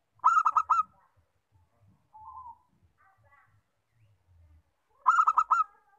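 Zebra dove (perkutut) cooing: two loud, rapid phrases of about four clipped notes each, about five seconds apart, with a single softer coo between them.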